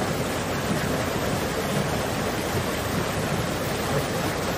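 Water gushing through the open gate paddles on both sides of a canal lock's top gate into the chamber as the lock fills: a steady rushing of falling water.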